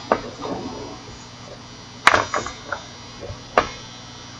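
Steady low electrical hum with a few short, sharp clicks spread across it: one at the start, a small cluster about two seconds in, and one more near the end.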